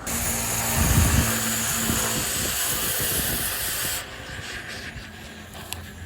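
Oxy-acetylene cutting torch hissing loudly for about four seconds, then cutting off abruptly, as it is used on a stuck excavator bushing.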